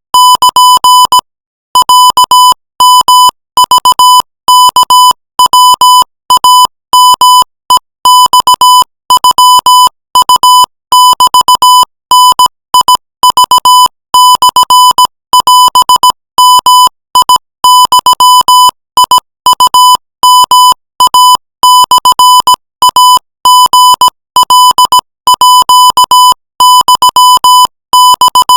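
Morse code sent at 20 words per minute as a single high-pitched electronic beep, keyed on and off in short dits and longer dahs with brief gaps between characters, and one longer pause about a second in.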